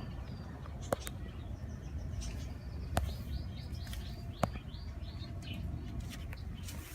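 A small bird chirping a quick run of short, high, falling notes, about two to four seconds in, over a steady low background rumble. Three sharp clicks stand out above it.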